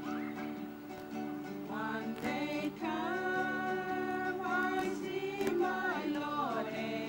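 Acoustic guitar strumming chords, with singing voices coming in about two seconds in and carrying a melody until near the end.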